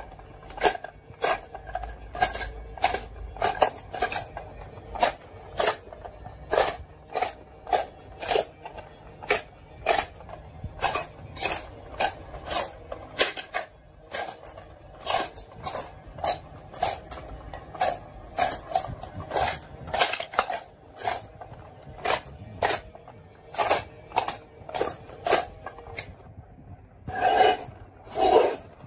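Marbles clacking and rattling down a wooden HABA marble run: a busy, uneven string of sharp knocks, with two louder, longer rattles near the end.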